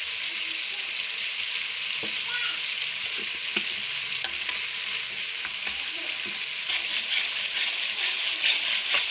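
Tomato and spice masala sizzling hard in hot oil in a wok, fried on high heat, with a few sharp clicks of the spatula against the pan. Near the end the stirring gets brisker and the crackle busier.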